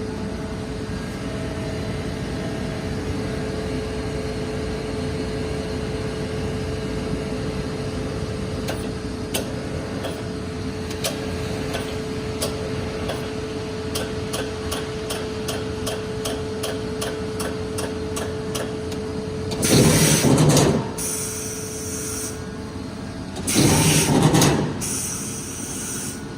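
Amada M-2545 sheet-metal shearing machine running: a steady motor hum with a held tone, a run of quick ticks, about three a second, partway through, then two loud noisy strokes of about a second each, some four seconds apart, near the end.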